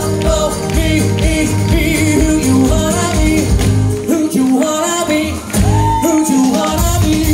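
Live pop band: a male lead vocalist singing over electric bass and drum kit. The bass and drums drop out briefly about four seconds in, and the voice holds a long high note near the end.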